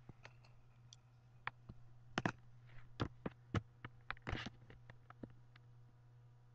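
A string of short, sharp, irregular clicks and taps, a dozen or more, most of them between about two and five and a half seconds in, over a steady low hum.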